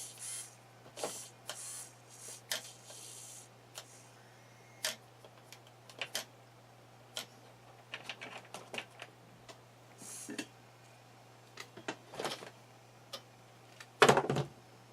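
Scattered light clicks and rustles of hands handling a hobby RC car and its wiring, over a faint steady low hum, with a louder clatter about a second before the end.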